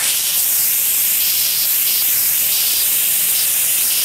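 Instant Pot electric pressure cooker's steam release valve, just switched from sealing to venting, jetting steam with a loud, steady, high hiss that starts suddenly: the quick pressure release after cooking.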